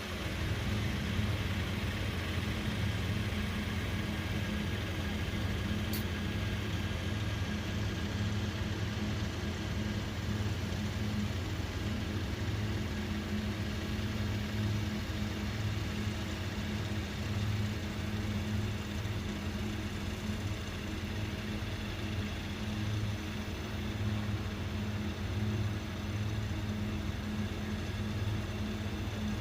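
Rice combine harvester's engine running steadily at a constant speed, a continuous low hum with machinery noise.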